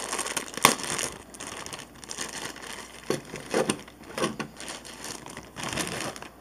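Thin plastic bag crinkling and rustling as it is pulled open and the parts inside are tipped out, with a sharp click about half a second in.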